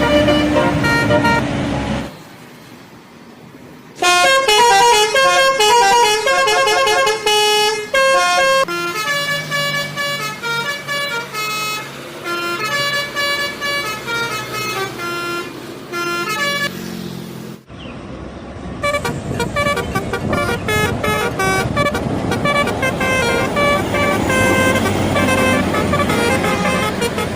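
Bus telolet horns playing quick melodic tunes of short notes that jump in pitch, one run after another. The sound drops to quieter about two seconds in and breaks off suddenly a little past halfway, and the later tunes sound over road noise.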